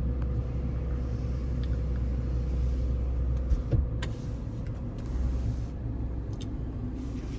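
Toyota 4Runner's 4.0-litre V6 running at idle: a steady low hum with a thin steady whine over it and a few light clicks.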